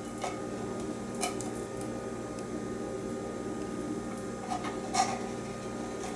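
A spatula working condensed cream of mushroom soup out of a tin can: faint scraping with a few light clicks against the metal, over a steady low hum.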